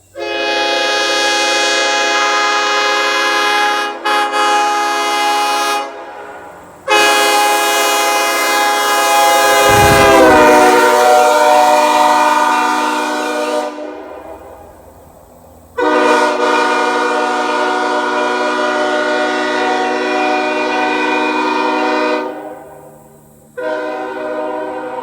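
Nathan Airchime K5HL five-chime locomotive air horn, with a two-piece sandcast 1L bell, sounding a deep chord in long blasts of several seconds each, four in all, the last starting near the end. Partway through the second blast the chord sags in pitch for a moment.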